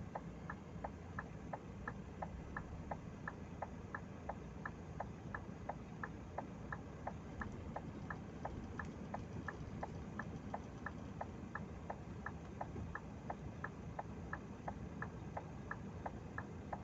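A truck's turn-signal or hazard flasher clicking evenly, about three clicks a second, over the low steady hum of the diesel idling.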